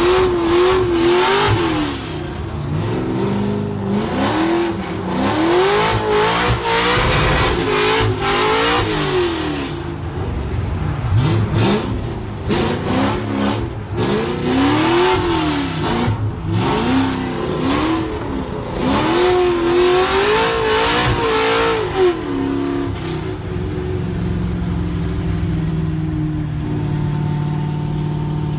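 Drift car engine revving hard, its pitch swinging up and down over and over. About two-thirds of the way through it settles into a steady idle.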